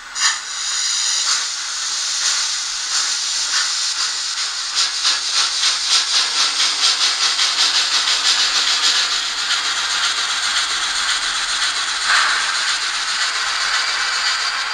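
Emergency-brake sound from the sound decoder of a PIKO N-scale BR 82 steam locomotive model, played through its small loudspeaker: a long, loud rush of hissing air. A fast pulsing beat runs through the hiss for a few seconds in the middle, and there is a short swell near the end.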